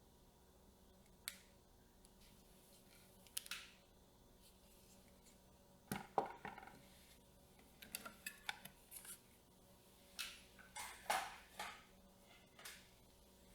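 Camera rig parts being handled and fitted: a few isolated clicks, then bursts of small clicks, taps and light scrapes of metal and plastic accessories being snapped and screwed into place.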